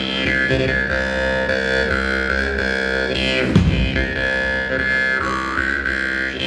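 Jaw harp (vargan) played into a microphone: a steady twanging drone with a bright overtone band that dips and rises as the player shapes the sound. A sudden loud, low accent comes about three and a half seconds in.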